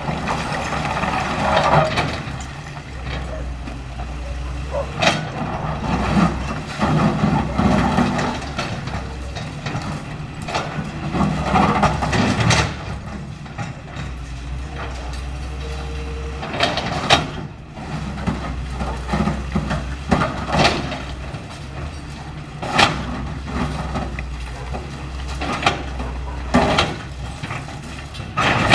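Caterpillar 325L hydraulic excavator's diesel engine running steadily, with repeated sharp cracks, knocks and crunching of building debris breaking during demolition.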